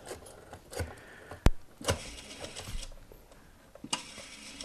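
Desk telephone being dialled by hand for an outside line: a few sharp clicks, the sharpest about a second and a half in, with short stretches of rattling.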